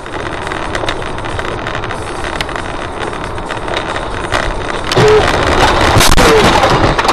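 Steady road and engine noise of a moving car, as heard by a dashcam, getting louder about five seconds in with a few sharp clicks.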